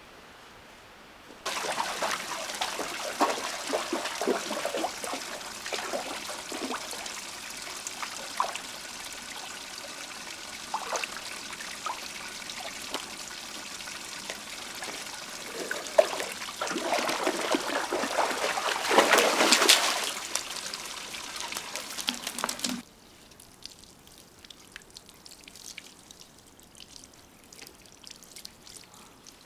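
Water running or pouring, starting abruptly about a second and a half in, getting louder near the middle and cutting off suddenly, then faint scattered clicks.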